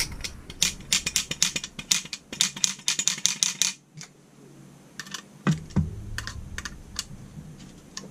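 Light metallic clicking and clattering as a Holley 4150 throttle baseplate and its linkage are handled. A fast run of clicks, about eight a second, lasts for roughly the first three and a half seconds. After a short lull come a dull knock and then scattered single clicks.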